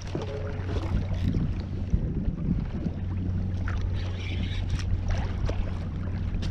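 Wind and water noise around a fishing kayak under a steady low hum, with scattered small clicks and knocks from the angler's rod and reel gear as a hooked fish is played.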